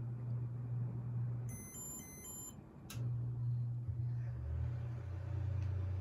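Casablanca Stealth ceiling fan motor humming steadily. About a second and a half in, the hum drops out during a second of rapid electronic beeping; a sharp click follows, and the hum comes back, taking on a lower second tone about a second later as the fan changes speed in its test mode.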